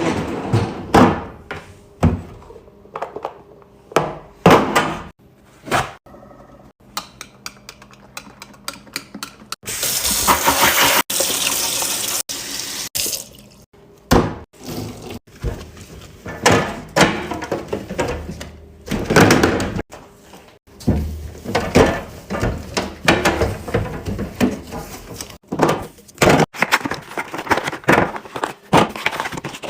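Containers being handled, with many short clicks, knocks and clatters. A tap runs into a sink for about three and a half seconds partway through.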